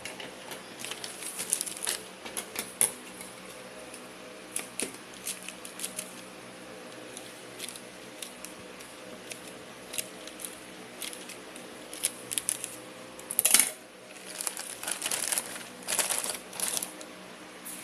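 A small package being opened by hand: packaging crinkling and tearing, with many scattered small clicks and a loud short burst of tearing about thirteen seconds in.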